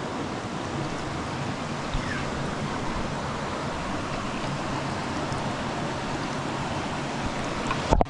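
Small mountain stream rushing close by as a steady hiss. Near the end there is a sharp knock, and the sound turns abruptly muffled as the camera dips under the water.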